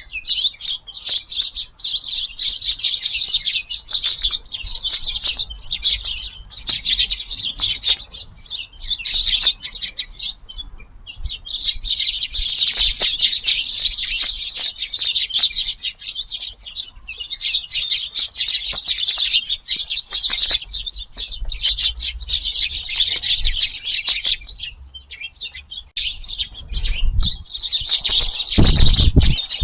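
A flock of Eurasian tree sparrows chattering and chirping continuously, with short lulls, as they feed. Near the end a strong low rumble comes in under the chirping.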